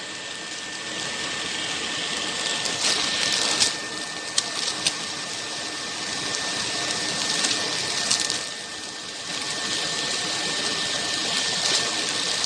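Automatic bread packaging machine running: a steady mechanical whir and hiss with a thin, constant whine, broken by a few sharp clicks a few seconds in.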